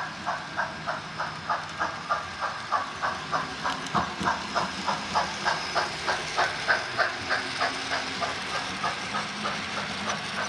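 Sound-equipped model steam locomotive under way, its speaker giving a steady steam-exhaust chuff about three times a second over a hiss.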